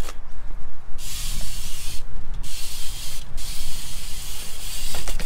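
Wind buffeting the camera microphone: a heavy low rumble with a high hiss over it that cuts out briefly three times.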